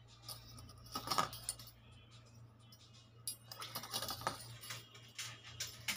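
Gold coin bangles clinking and jingling as they are handled: the small coin-shaped discs chink against each other and against the stacked bangles. There is a short clatter about a second in, and more from about halfway on.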